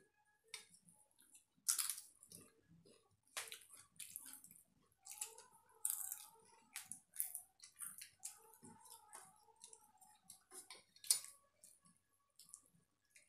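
Fingers mixing and squishing watery panta bhat (rice soaked in water) on steel plates, with irregular wet clicks and taps of fingertips against the metal, and some chewing.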